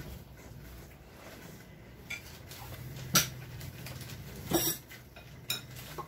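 Metal spoons clinking against serving bowls and plates as food is dished out: a few separate sharp clinks, the loudest about three seconds in.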